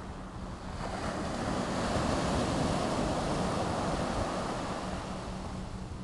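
Small Pacific Ocean waves breaking and washing up the sand in a rush of surf that swells about a second in and eases off toward the end.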